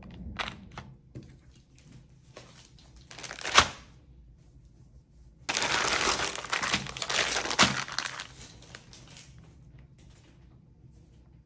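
Plastic mailer and packaging crinkling as it is handled. There are short bursts at first and one sharp crackle about three and a half seconds in, then a denser stretch of crinkling from about five and a half to eight seconds.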